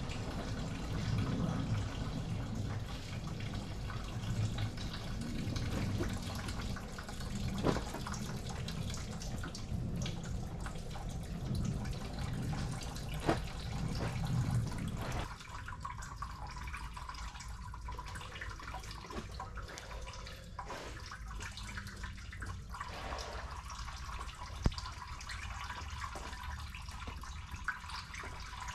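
Engine coolant draining out of a car radiator, running and splashing steadily into a plastic bucket; the sound turns thinner abruptly about halfway through.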